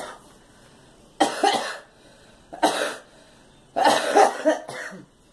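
A girl coughing: a cough about a second in, another shortly after, then a run of several quick coughs near the end.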